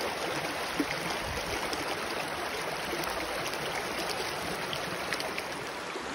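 Water of a small, shallow rocky brook running over stones in a riffle, a steady babble.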